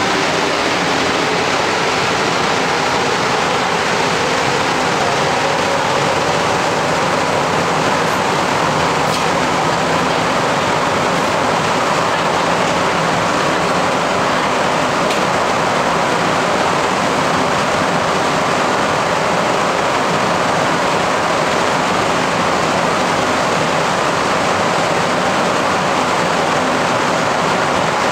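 An MR-63 rubber-tyred metro car running at speed through a tunnel, heard from inside the car: a steady, loud rumble of tyres and running gear. A faint whine rises slowly in pitch over the first few seconds.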